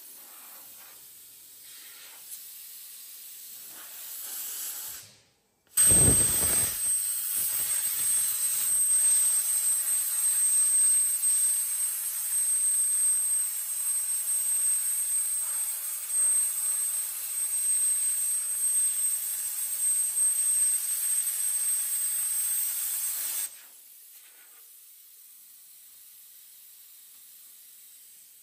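A cutting torch hissing steadily as it cuts through thick steel chassis plate, with a thin high whine over the hiss. It starts suddenly about six seconds in with a brief low thump and cuts off sharply about 23 seconds in.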